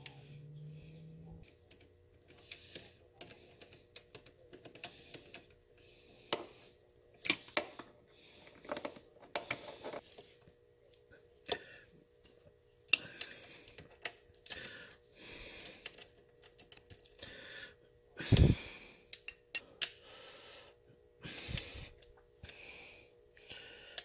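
Irregular clicks, taps and rattles of parts and hand tools being handled while the motorcycle's top end is put back together, with one heavier thump about eighteen seconds in.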